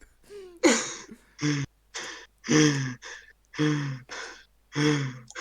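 A man's repeated gasping, breathy vocal bursts, about two a second. Short pitched exhales alternate with hissing intakes of breath.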